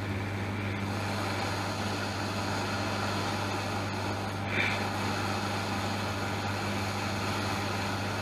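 Hot air rework station blowing: a steady fan hiss over a low hum, with a brief small rise about halfway through, as it heats flux-covered capacitors to melt their solder.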